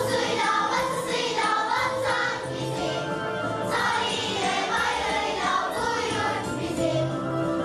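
A school choir of children singing a song together.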